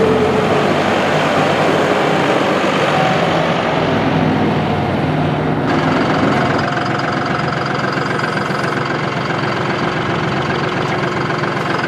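The three-cylinder turbo diesel of a 2022 John Deere 5075E tractor runs steadily as the tractor drives over gravel. About halfway through, the sound cuts abruptly to the engine idling up close.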